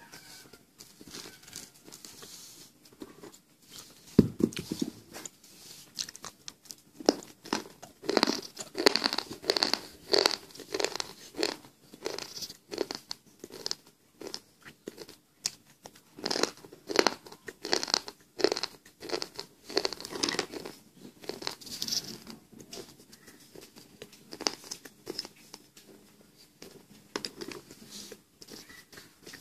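Dry slate pencil chips being bitten and chewed: a long run of crisp, irregular crunches, one or two a second, densest in the middle, with a single heavier thump about four seconds in.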